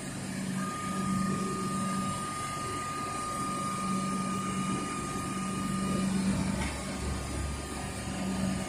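Comeng electric train standing at the platform with doors open, its onboard equipment humming steadily, with a thin high whine from about half a second in until about six seconds in.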